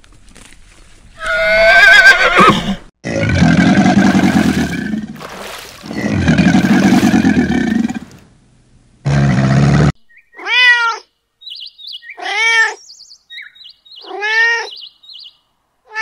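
A sequence of animal calls. First a horse whinnies with a wavering pitch. Two long, loud, rough low calls follow, and then a cat meows three times at about two-second intervals, each meow rising and falling.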